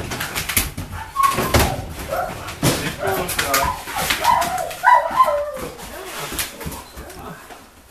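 A dog whining in a run of short, high-pitched whimpers that step up and down in pitch, with scattered clicks and knocks around it.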